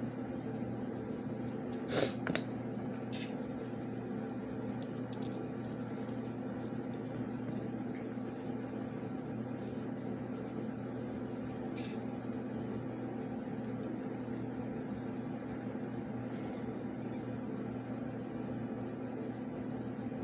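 A steady machine hum with a few light clicks and taps, the sharpest two coming about two seconds in.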